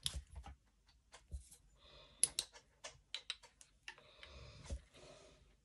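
Two metal laser pointers being handled and switched on: a scatter of small sharp clicks, thickest in the middle, with soft rustling and a low bump near the end.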